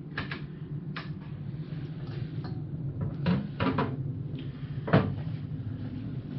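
A handful of short knocks and clunks, the loudest about five seconds in, as parts of a steel tool cabinet are handled during assembly, over a steady low hum.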